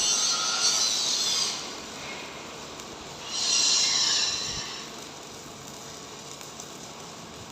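Stick (rod) welding arc, a crackling hiss while the rod burns. It runs for about a second and a half, stops, then runs again for about a second and a half midway through.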